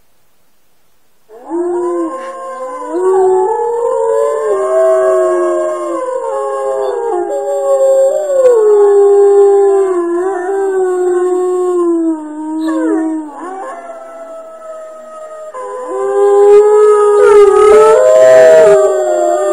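A chorus of wolves howling: several long, gliding howls overlapping at different pitches, starting about a second in. The chorus dips briefly about two-thirds of the way through, then swells again.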